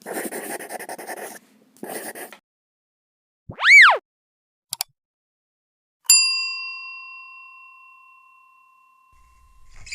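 Edited sound effects: two short whooshing hisses, a quick swoop up and down in pitch, two clicks, then a single bell ding about six seconds in that rings out and fades over about three seconds.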